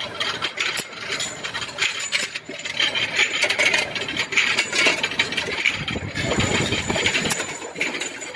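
A vertical duplex surface grinder grinding the faces of bearing rings. Its grinding hiss runs with a thin, steady high whine and many irregular metallic clicks and clinks.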